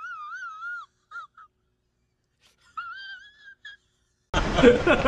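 A high, wavering whistle-like tone, heard once for about a second and again about three seconds in, with dead silence around it. It is a sound effect edited in over muted audio.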